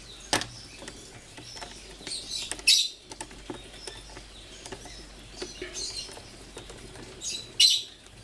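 Socket ratchet wrench clicking as it is swung back and forth, tightening the bolts of a water pump's outlet flange. The clicks come in short runs, the loudest two about two and a half seconds in and near the end.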